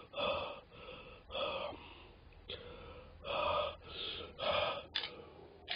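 A man breathing hard through his open mouth in a string of about seven gasping breaths. His mouth is burning from extremely spicy instant yakisoba. A short sharp click comes about five seconds in.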